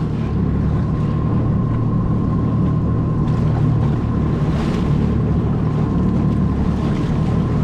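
Jet ski engine running steadily underway: a constant low drone with a thin high whine over it, and wind on the microphone.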